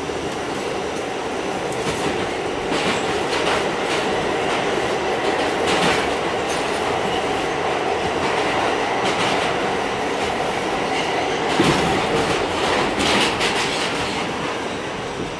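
Interior sound of an R46 subway car running along the track: a steady rumble and hum, with the wheels clacking over rail joints at irregular intervals.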